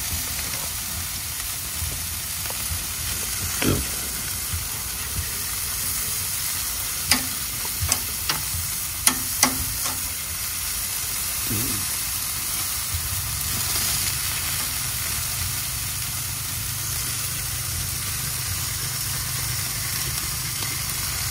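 Chicken wings sizzling on a barbecue grill, a steady hiss, with a few sharp clicks about seven to ten seconds in.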